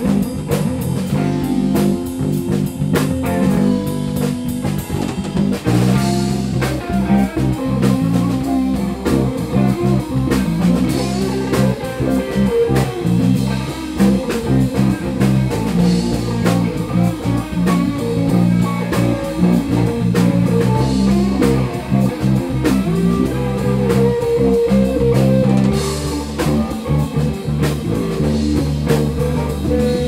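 Live blues-rock band playing an instrumental stretch with no singing: electric guitar and bass over a steady drum-kit beat, with keyboard.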